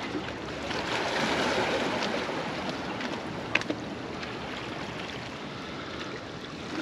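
Small waves washing among the boulders of a rock breakwater, with wind on the microphone. The wash swells about a second in, and a couple of sharp clicks come about three and a half seconds in.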